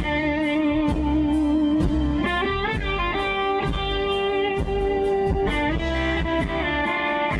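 A live band plays a blues-rock number, with a lead electric guitar holding long, slightly wavering notes over a steady drum beat.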